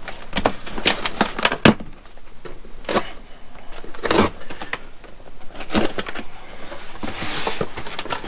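Cardboard box being opened: packing tape picked at, slit and torn, with irregular scratchy scrapes and sharp knocks of the cardboard flaps.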